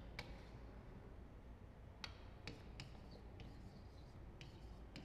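Chalk writing on a chalkboard: about half a dozen faint, sharp, irregularly spaced taps and clicks as the chalk strikes and moves over the board.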